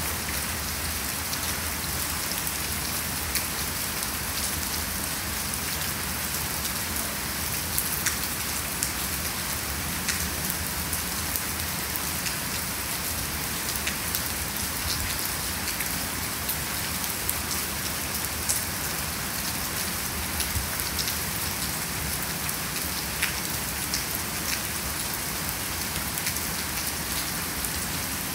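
Heavy rain falling steadily, an even hiss with frequent sharp ticks of individual drops hitting a surface.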